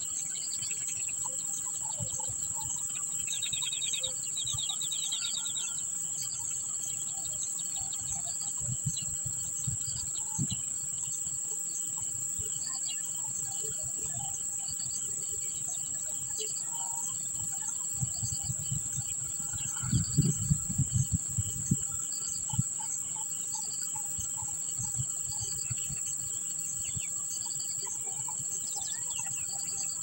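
Steady high-pitched drone of insects, with short bird chirps now and then, a run of them about four seconds in. About two-thirds of the way through comes a cluster of low thumps.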